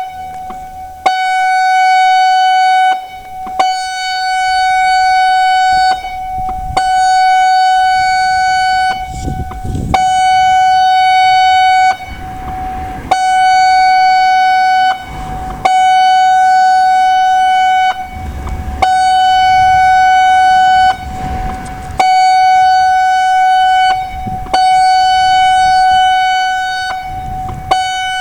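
Severnside public warning siren sounding its test: a steady single-pitch electronic tone, rich in overtones, switching on and off roughly every three seconds, about two seconds on and a short break between.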